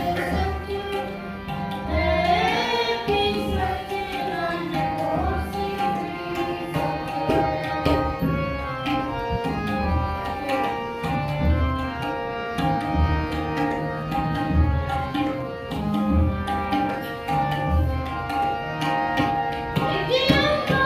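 Sikh kirtan: a tabla pair played in a steady, regular rhythm under the held tones of a harmonium. A boy's voice sings a line about two seconds in and again near the end.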